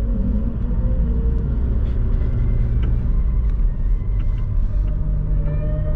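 A 4x4 vehicle driving slowly over a rough dirt track, heard from inside the cab: a steady low rumble of engine and tyres, with a few light knocks and rattles.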